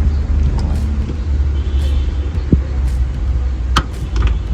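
A steady low rumble, with a short knock about halfway through and a sharp click near the end.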